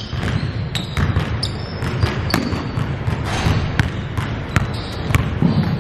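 Basketball dribbled on a hardwood gym floor during one-on-one play: irregular sharp bounces and thuds over a steady low rumble.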